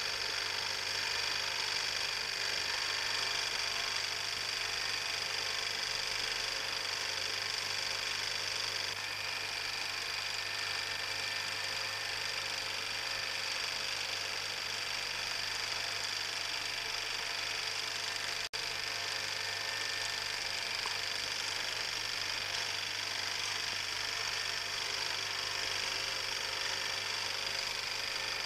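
Film projector running with a steady mechanical whirr and hum, broken once by a momentary dropout about two-thirds of the way through.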